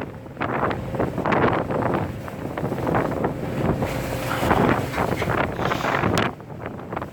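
Wind buffeting the microphone in irregular gusts on a boat crossing open sea, with the rush of waves and spray.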